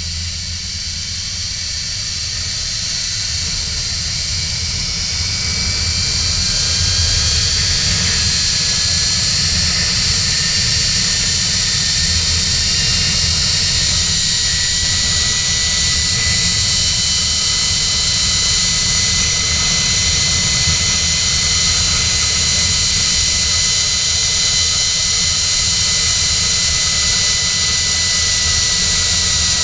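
Zipline trolley pulleys running along the steel cable with a high, steady whine, over a rush of wind buffeting the camera's microphone. It grows louder over the first six or seven seconds as the ride speeds up, then holds steady.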